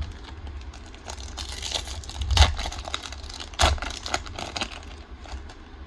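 Foil Pokémon card booster pack crinkling and tearing as it is handled and opened, a run of small crackles with two louder ones about two and a half and three and a half seconds in.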